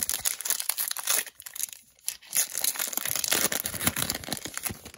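Plastic wrapper of an Upper Deck hockey card pack being torn open and crinkled in the hands: a dense crackling that dips briefly about two seconds in.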